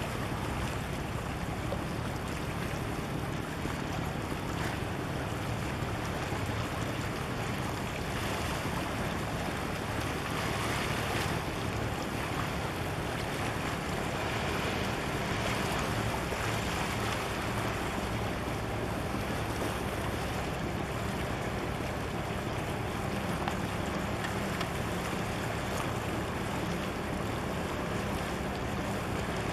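Sea water washing against concrete breakwater blocks, with wind on the microphone and a faint, steady low hum underneath.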